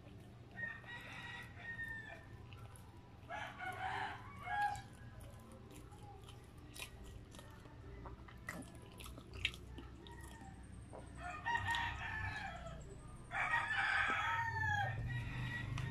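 Rooster crowing about four times in the background, each crow a second or more long and ending in a falling note, two near the start and two near the end. Between the crows come soft, close-miked chewing and mouth clicks from someone eating a bread sandwich.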